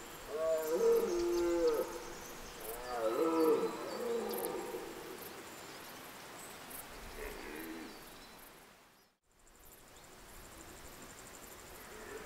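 Red deer stag roaring in the rut: two loud roars in the first four seconds, then a fainter roar about seven seconds in. The sound drops out briefly about nine seconds in.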